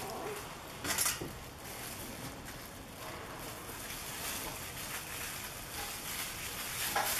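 Plastic wrap rustling and a table knife scraping as soft butter dough is spread over pastry dough on a silicone mat, with a brief louder rustle about a second in and another near the end.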